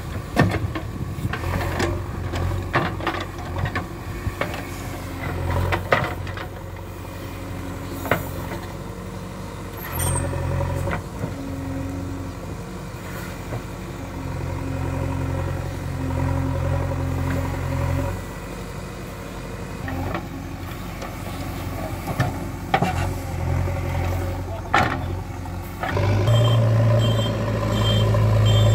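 JCB 3DX Ecoxcellence backhoe loader's diesel engine running, its note swelling in spells as it works the backhoe arm and bucket in sand, with scattered sharp knocks. Near the end the engine holds a louder, steadier note while a high beep repeats about twice a second.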